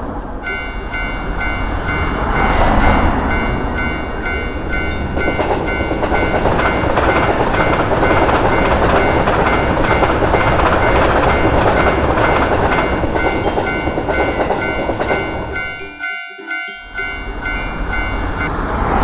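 Japanese level-crossing alarm bell ringing in steady repeated dings while a train runs past with a steady rolling rumble. About 16 seconds in, the train noise briefly drops away while the bell keeps ringing.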